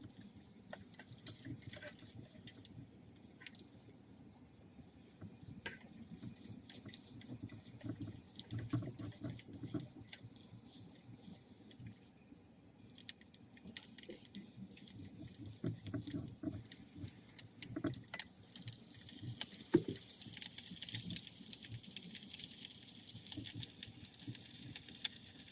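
Fatty pork and chilies frying in oil in a small pan: scattered crackles and pops throughout, with a sizzling hiss that grows louder from about halfway through.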